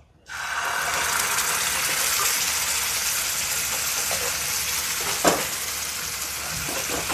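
Almond and coconut-milk dosa batter sizzling as it is poured into a hot buttered non-stick pan; the sizzle starts suddenly a moment in and goes on as a steady hiss that eases slightly. A brief click about five seconds in.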